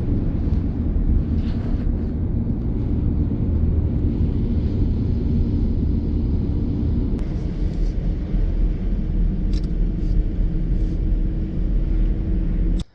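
Car driving on the road: a steady low rumble of engine and road noise, which cuts off suddenly at the end.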